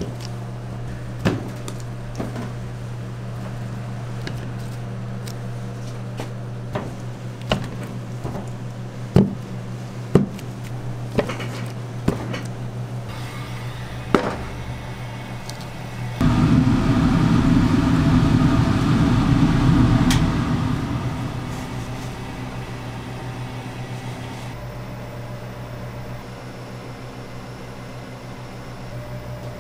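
Blocks of butter being handled and set into a frying pan: scattered knocks and taps over a steady low hum. About halfway through, a loud deep rushing noise runs for about five seconds and then fades away.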